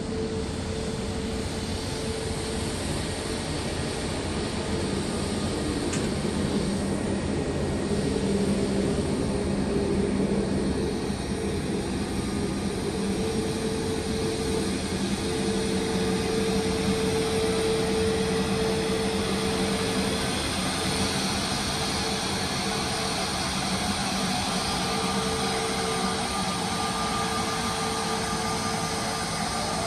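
Jet engines of an Airbus A320-family airliner running at taxi power: a steady rumble and whine with a held low tone throughout.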